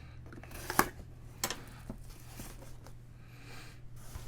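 Trading cards and their packaging being handled: a sharp click about a second in and another about half a second later, then a few lighter ticks and rustles, over a steady low hum.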